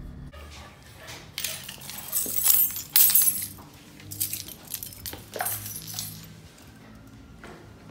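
A low engine hum stops just after the start, followed by a run of sharp metallic clinks and clattering, loudest about two to three seconds in.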